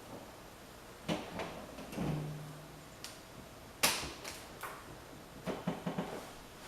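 A string of sharp knocks and clicks, like a door or cupboard being handled, spread unevenly. The loudest comes about four seconds in, and a quick run of several clicks follows near the end.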